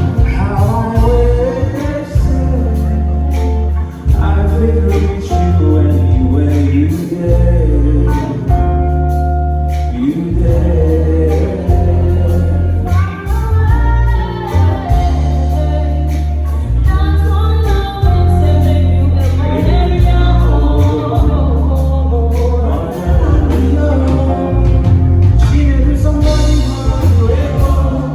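A song with singing over a heavy, steady bass line.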